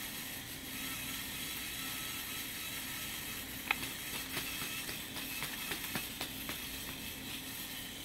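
VEX robot ball intake and flywheel motors running slowly on a low battery with a steady whir. From about three and a half seconds in, irregular clicks and knocks come from the mechanism.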